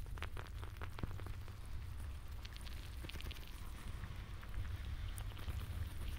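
A steady low rumble with scattered crackles and clicks, bunched in the first second and again around the middle.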